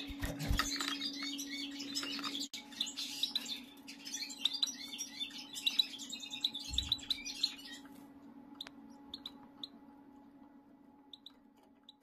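Small caged finches, a goldfinch and canary pair with their hybrid young, chirping: quick short high chirps, busiest in the middle and thinning to a few single chirps near the end.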